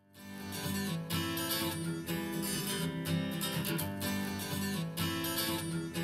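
A song opening on strummed acoustic guitar, played back through a pair of Presonus Eris E4.5 studio monitors. It fades up from silence at the very start and then runs on at an even level.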